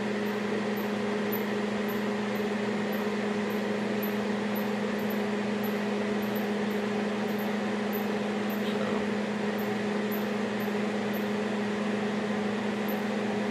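A steady machine hum, unchanging throughout: a constant low drone with an even hiss over it, as from a motor-driven household appliance running.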